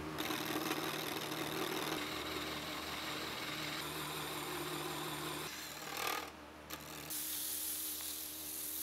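Wood lathe motor running with a steady hum while a turning chisel cuts the spinning wooden spindle, giving a rough scraping noise. About seven seconds in, sandpaper held against the spinning wood takes over with a bright steady hiss.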